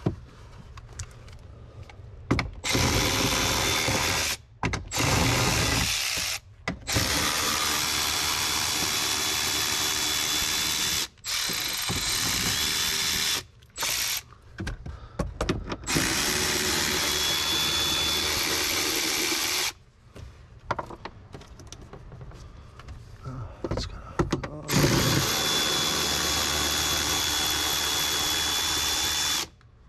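A power driver with an 8 mm socket spins out screws in a string of runs of one to five seconds each, with a thin steady high whine over the motor. Fainter clicks and handling sounds fill the gaps between runs.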